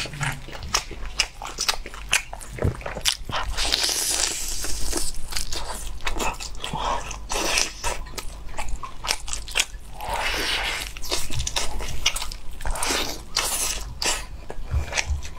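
A person eating braised pork knuckle close to a clip-on microphone: many wet bites, chewing and lip smacks, with the meat and skin being torn apart by hand.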